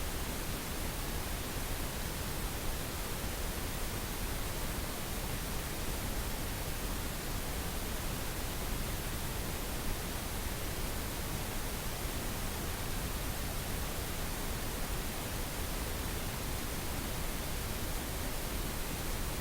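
Steady pink noise: an even, unbroken hiss spread across all pitches, a synthetic sleep-therapy noise track.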